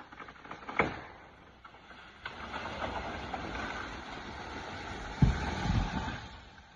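Part of a large oak coming down: a sudden crack, a rush of breaking branches and leaves, then heavy thuds as the wood hits the ground about five seconds in.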